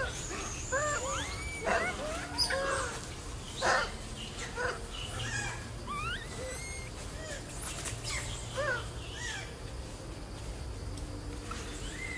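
Long-tailed macaques giving short, high, arched coos and squeaks, in clusters, with small birds chirping high above them.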